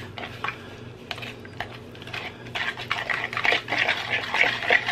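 Wire whisk beating cream cheese, egg, sugar and vanilla in a bowl: quick wet scraping and tapping of the wires against the bowl, faster and louder from about halfway through.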